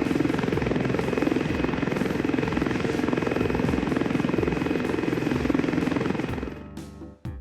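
Helicopter rotor and engine running with a fast, steady chop, fading out near the end.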